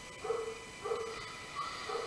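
An animal calling in short, evenly repeated notes, about two a second.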